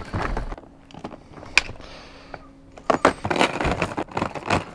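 Metal chain rattling and clinking against a plastic storage tote as it is unwrapped from the lid. There is a quieter stretch with one sharp click, then a busy run of clinks from about three seconds in.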